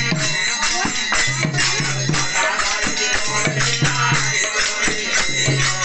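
Bengali harinaam sankirtan: men singing a devotional chant together over a reed-organ drone from a harmonium, with the steady ringing clash of kartal hand cymbals and khol drum strokes.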